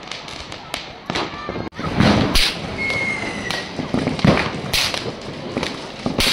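Fireworks and firecrackers going off: a string of sharp bangs at uneven intervals, heaviest from about two seconds in, with a brief whistling tone about three seconds in and people's voices underneath.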